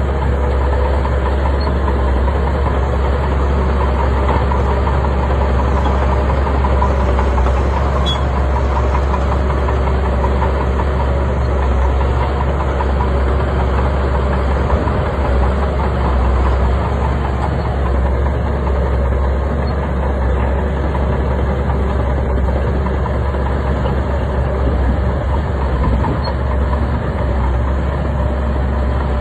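Bulldozer's heavy diesel engine running steadily with a deep, even rumble.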